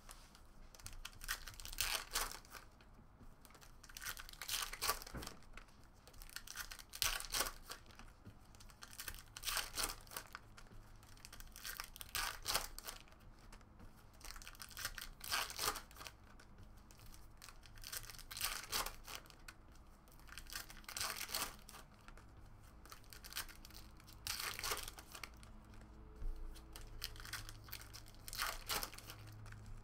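Foil 2018 Donruss Optic baseball card packs being torn open one after another, the wrappers crinkling, in short bursts every couple of seconds.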